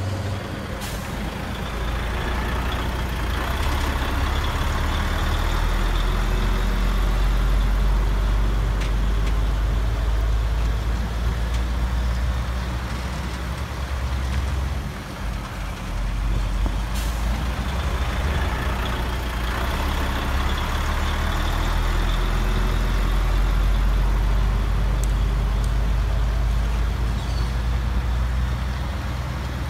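Diesel truck engine sound from an RC Peterbilt 357 model semi running steadily as it drives, swelling louder twice with a rushing hiss. There is a short sharp click about a second in and another about halfway through.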